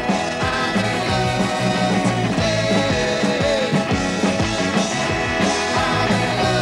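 Rock band playing a song: a steady drum beat under electric guitars and bass, with some singing.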